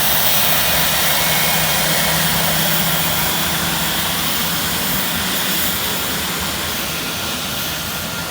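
Cessna Citation business jet's turbofan engines running, a loud steady roar with a low hum under it in the first few seconds, easing slightly near the end.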